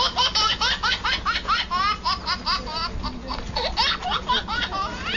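Rapid, high-pitched laughter: a quick run of short rising 'hee' sounds, about five or six a second.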